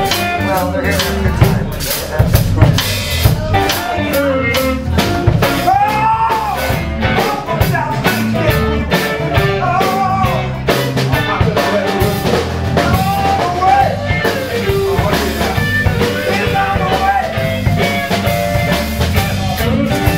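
Live blues band playing an instrumental passage: a harmonica played into the vocal microphone with bending notes, over a drum kit, electric bass and electric guitar.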